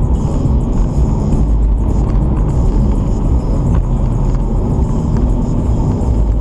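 Chrysler Crossfire's V6 engine and tyre noise heard from inside the cabin while cruising at a steady speed: a constant low rumble.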